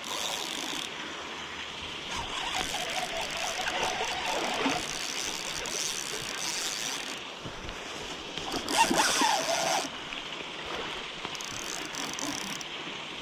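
Okuma Stratus-V spinning reel cranked in uneven bursts as a twitching jig is worked back, over the steady rush of a flowing river. A louder burst of noise comes about nine seconds in.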